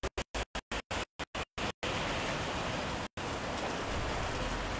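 Heavy rain falling on a paved street, a steady even hiss. The sound cuts out to silence in a rapid string of brief gaps during the first two seconds, and once more about three seconds in.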